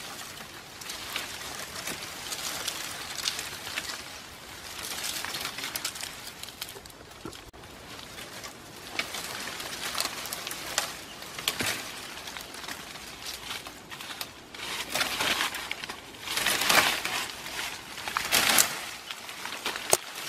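Dry leaves and branches rustling and crunching in irregular bursts as a person pushes and steps through brush, with the loudest crunches near the end.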